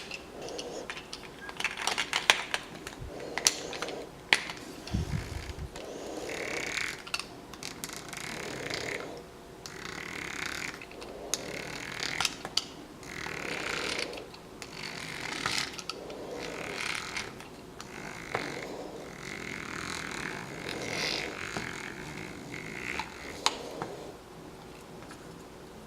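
Plastic Play-Doh grinder toy being cranked by hand, a rasping, clicking grind of plastic parts that repeats about every second and a half as the dough is pushed through.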